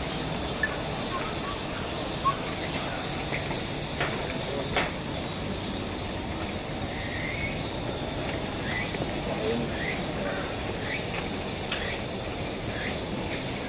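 Steady, high-pitched drone of a chorus of summer cicadas in the trees, with a few faint clicks and short chirps over it.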